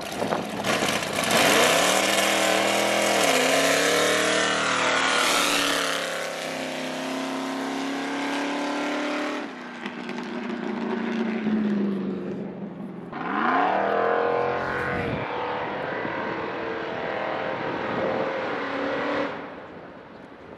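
Mid-engine Chevy S10 pickup's carbureted V8 revving hard as it accelerates away, the revs climbing, dropping and climbing again through the first half, then fading. A second burst of hard revving rises about two-thirds through and cuts off suddenly.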